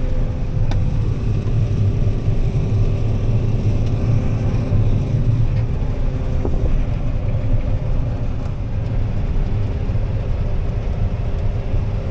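John Deere 9400 combine running steadily while harvesting soybeans: a continuous low rumble with a steady hum over it.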